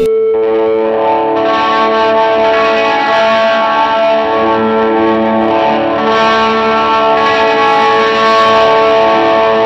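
Drone music of held, layered tones through distortion and effects, with a lower note pulsing on and off about once a second; a brighter upper layer comes in about a second in.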